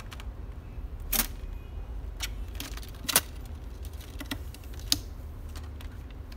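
Kittens moving about in a paper-lined cardboard box with dry kibble: a handful of irregular sharp clicks and crackles, loudest about three seconds in, over a steady low hum.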